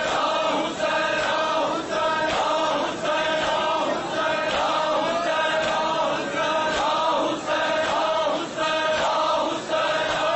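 A group of men chanting a Shia noha, a mourning lament, in unison, in a steady rhythm.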